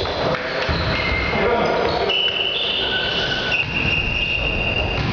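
Indoor volleyball play: a ball being struck and bouncing, players' voices, and high, held squeaks in the second half.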